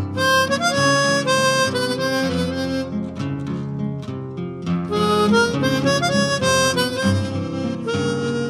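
Background music: a harmonica melody of held notes over guitar accompaniment.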